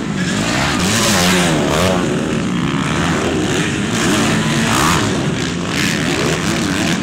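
Several motocross bikes' engines revving up and down as they race, their pitch rising and falling again and again and overlapping.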